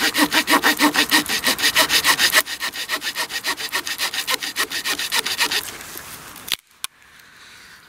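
The small saw blade of a Swiss Army pocket knife sawing through dead, rain-wet Douglas fir in quick, even back-and-forth strokes. The strokes turn softer about two and a half seconds in and stop with a sharp click about a second before the end.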